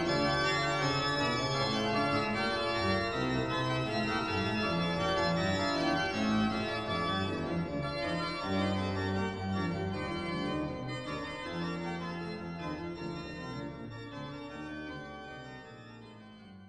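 Organ music with held chords that change every second or so, slowly fading out over the second half.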